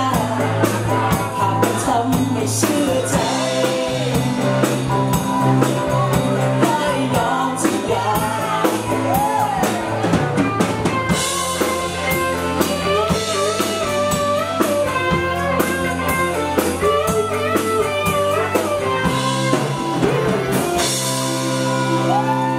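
Live pop-rock band playing: drum kit, bass, electric guitar and keyboard, with singing at the start. In the middle an electric guitar lead plays bending notes; about 21 seconds in the drums stop and the band holds a final ringing chord.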